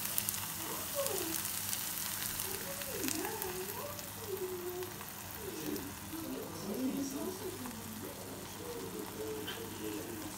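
Tomatoes and green peppers sizzling steadily in a hot nonstick frying pan as beaten eggs are poured over them.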